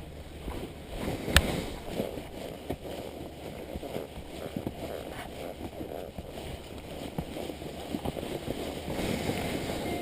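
Strong wind buffeting the microphone: an uneven, gusting rumble. A sharp knock comes about a second and a half in.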